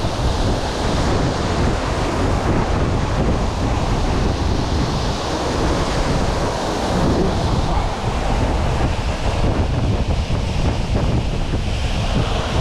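Steady rushing of a tall waterfall, about 50 metres, crashing onto rocks, with wind buffeting the microphone.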